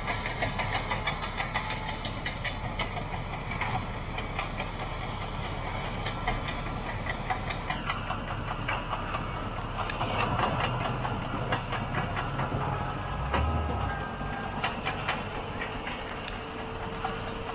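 A Caterpillar D6T XL bulldozer clearing brush: its diesel engine runs steadily under a dense clatter and crackle from its tracks and the brush it is pushing through.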